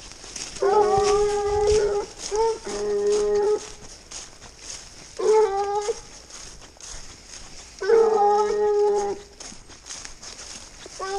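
Hounds baying while working a scent trail: long, drawn-out bays of steady pitch, about four in a row a couple of seconds apart, with another starting near the end.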